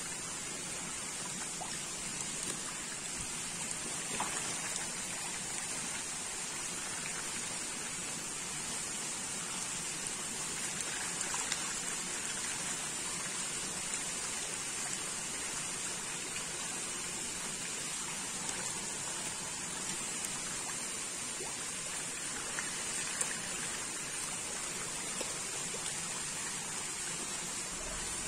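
A crowd of Nile tilapia thrashing at the surface of a farm pond while feeding, giving a steady, dense splashing of water with a few louder splashes.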